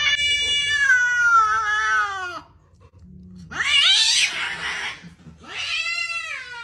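A longhaired cat yowling: a long drawn-out call that falls in pitch, a harsh, noisy screech about three and a half seconds in, then another long falling yowl near the end.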